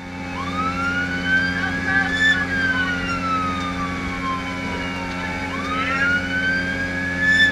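Emergency siren wailing, each cycle rising over about two seconds and then falling slowly, twice, over the steady hum of the boat's engine running under way.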